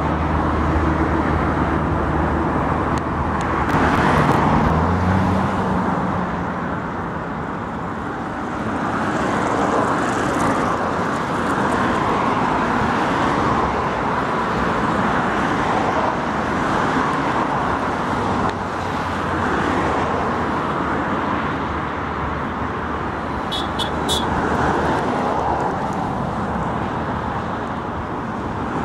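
Steady road traffic passing close by on a bridge. A heavy vehicle's low engine hum at the start rises in pitch about five seconds in and fades, and a few short high ticks come about two-thirds of the way through.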